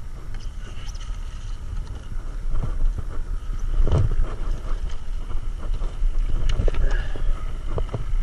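Wind buffeting the microphone over water sloshing and splashing around a paddleboard, with a few short knocks, the loudest about four seconds in.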